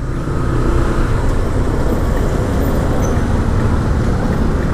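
Steady road-traffic noise: motor vehicles' engines running.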